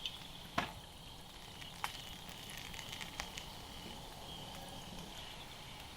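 Faint steady sizzle of beef and wine sauce cooking in a skillet over a scrap-wood campfire, with three sharp crackles in the first half, the loudest about half a second in.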